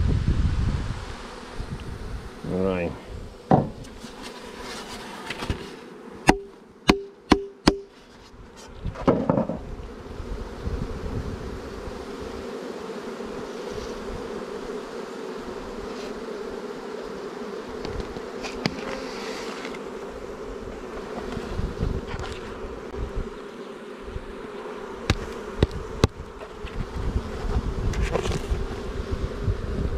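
Honeybees humming steadily from the opened colony. About six seconds in come four sharp knocks in quick succession, roughly half a second apart.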